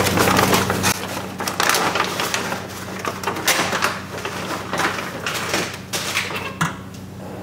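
Thin plastic door vapor barrier crinkling and rustling as it is lifted and folded up out of the way, with irregular sharp crackles; it stops a little before the end.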